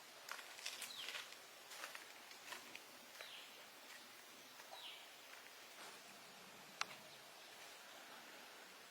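Faint outdoor ambience with scattered small clicks and taps, one sharper tap about seven seconds in, and a few short high chirps that fall in pitch.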